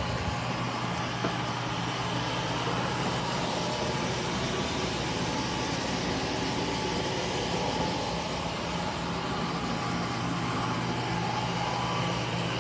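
eufy C28 robot vacuum and mop running steadily, a constant fan whir over a low motor hum.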